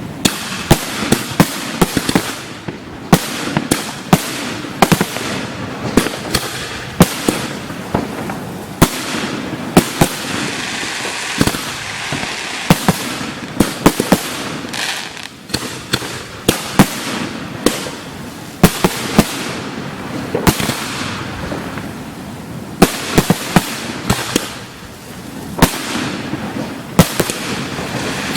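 Fireworks display: many sharp booms and bangs of shells going off in quick succession, often several a second, over a continuous crackling hiss.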